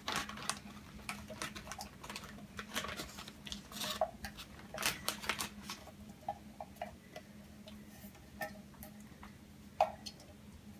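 Spatula scraping diced tomatoes out of a metal can into a plastic freezer bag: irregular scrapes and taps against the can, busiest in the first half.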